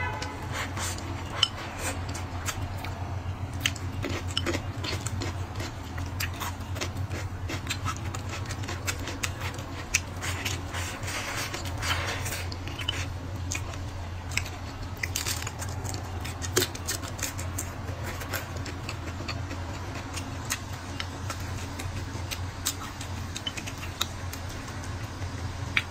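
Close-up eating sounds: wooden chopsticks clicking and scraping against a ceramic bowl as rice and shrimp are pushed into the mouth and chewed, many small clicks through the whole stretch, over a steady low hum.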